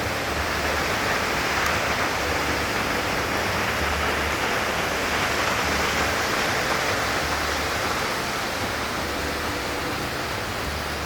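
Waterfall pouring into a pool: a steady, unbroken rush of water.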